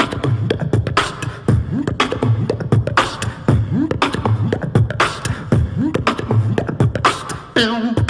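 Human beatboxing: a steady groove of deep vocal kick drums with rising bass swoops, punctuated by sharp snare and hi-hat clicks. Near the end, a wavering sung tone with vibrato comes in.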